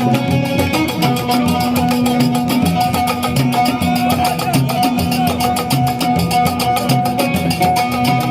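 Music with a steady beat, led by percussion and plucked strings.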